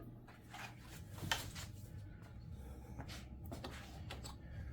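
Faint rustling, rubbing and light clicks of packaging being handled as a leaf blower is taken out of its box, with a few small knocks about a second in and again near the end.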